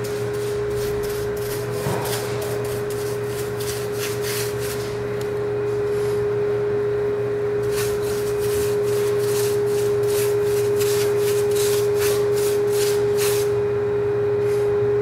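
Large paintbrush scrubbing paint into the grout lines of a brick fireplace: a quick run of short scratchy strokes with brief pauses, over a steady humming tone.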